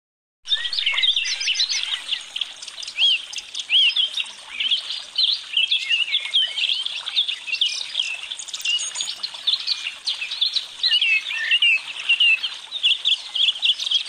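A chorus of many birds chirping and whistling at once: short, overlapping calls, dense and unbroken, starting about half a second in.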